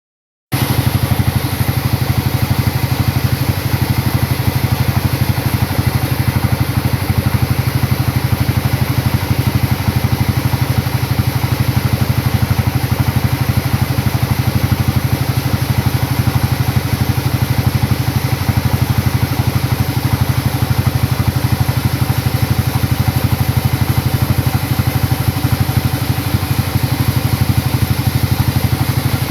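Sawmill's engine running steadily at an even speed, with a fast, regular pulse and no change in load.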